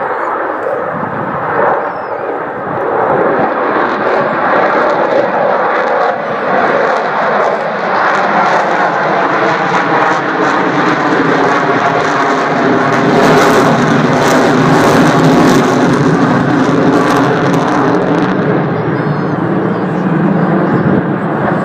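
Avro Vulcan's four Rolls-Royce Olympus jet engines running loud as the bomber flies its display. The roar builds to its loudest about two-thirds of the way through, then eases slightly as its pitch slides lower.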